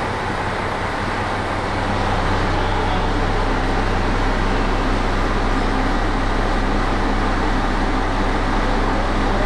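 Diesel limited-express railcar heard from inside the carriage: a steady engine drone with a low hum under a rushing running noise, getting louder about two seconds in.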